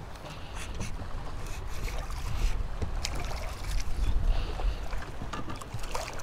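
Wind buffeting the microphone in an uneven low rumble, with scattered small clicks and knocks.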